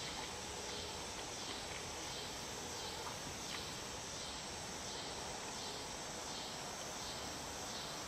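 Quiet outdoor ambience: a steady, even hiss with a couple of faint clicks about three seconds in.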